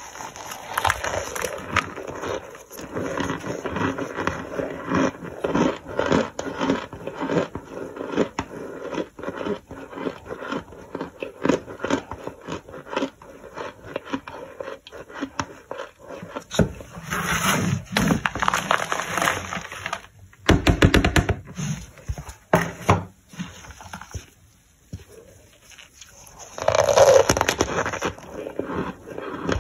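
Gloved hands pressing and crumbling toasted, crunchy starch, making dense, irregular crunching and crackling with louder squeezes now and then.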